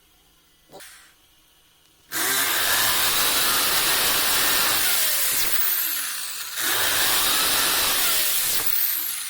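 Power drill boring into the bathroom wall in two long runs. The first lasts about four seconds, the second about two and a half, with a short pause between them and a brief fade near the end.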